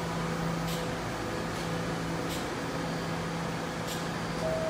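An R68-series subway train stands at the platform with its doors open, its equipment giving a steady hum. Near the end a tone sounds as the door-closing chime begins.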